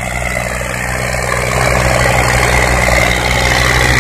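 Three-cylinder diesel tractor engines, a Ford 3610 and a Massey Ferguson 240, running hard with a steady low engine note while hauling a heavily loaded straw trolley.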